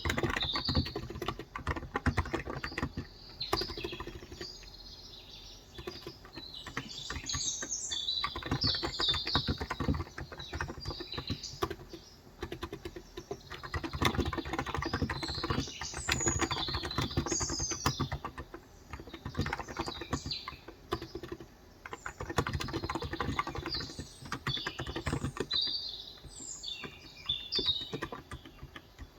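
Typing on a COX Endeavor electro-capacitive keyboard with 35 g switches: quick runs of soft keystrokes broken by short pauses. Small birds chirp and trill in the background.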